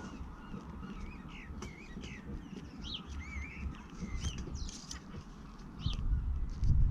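Small birds chirping and singing in short wavering phrases over a low background rumble, with a few faint clicks. The rumble grows louder near the end.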